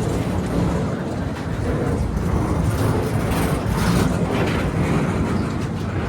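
A train running past, its wheels on the rails making a steady rumble.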